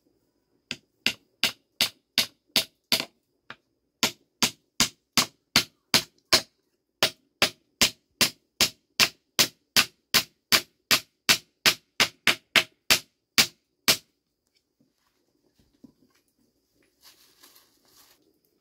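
Hammer driving nails into a wooden frame: sharp, evenly spaced strikes about two and a half a second, in three runs with short pauses, stopping about 14 seconds in. Near the end, a brief rustle of a plastic bag.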